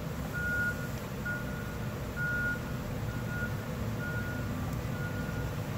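Electronic beeper sounding a short high tone about once a second, steady and regular, over a low steady machine hum.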